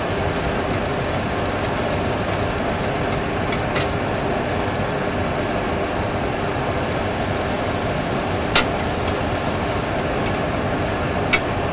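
Steady rushing flight-deck noise of a Boeing 737 Classic in flight, airflow and engine noise at an even level, with a few sharp clicks; the loudest click comes about eight and a half seconds in.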